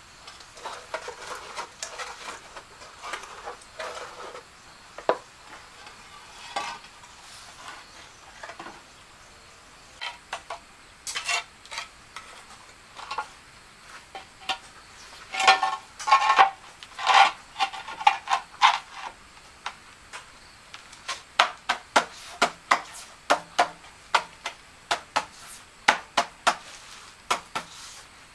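A metal trowel scraping and clinking against mortar and tile, irregular at first, with a loud cluster of scrapes about halfway through. In the second half come sharp taps at about two a second.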